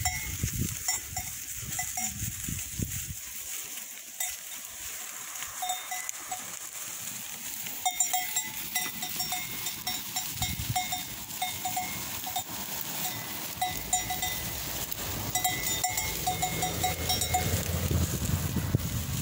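Bells on a flock of sheep and goats clanking on and off as the animals move, sometimes a single clang and sometimes a quick run of them.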